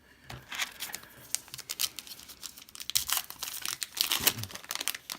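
Irregular crinkling and rustling of a pack of Topps Heritage baseball cards being handled, with paper cards and wrapper crackling and sliding. It is busiest in the second half.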